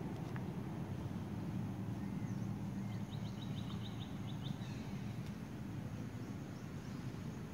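Outdoor ambience with a steady low rumble. About three seconds in comes a short, rapid, high-pitched chirping trill of about eight notes.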